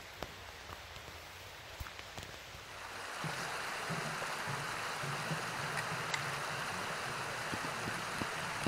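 Creek water rushing steadily, coming in about three seconds in, with scattered footfalls on a metal footbridge.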